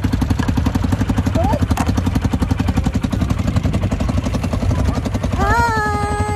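ATV (quad bike) engine idling with a fast, even pulsing beat.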